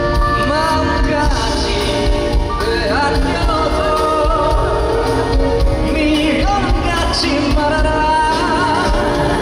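Live pop song performance: a singer holds wavering notes with vibrato over a full band with a steady drum beat.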